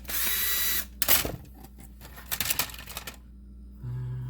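Power driver whirring for under a second as a screw is backed out of a plastic game cartridge shell, then a series of sharp plastic clicks and rattles as the shell is handled and opened.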